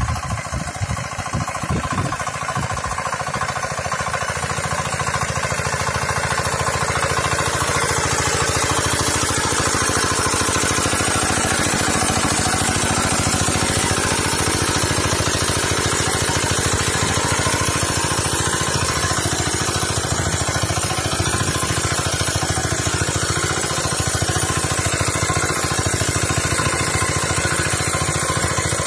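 Walk-behind rotovator's small engine running steadily under load while its rotary tines churn through the soil.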